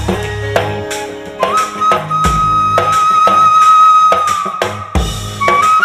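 Instrumental interlude of a Bengali film song: a flute or violin holds a long melody line over rhythmic percussion.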